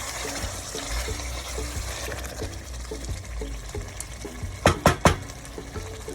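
Meat and turnip curry sizzling in the pot as frozen, pre-boiled turnips thaw in the hot masala, with three sharp knocks about five seconds in.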